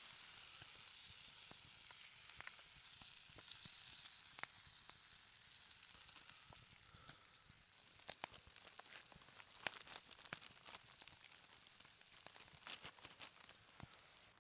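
Fajitas sizzling as they fry in a pan, a steady hiss with scattered crackling pops that come more often after about eight seconds.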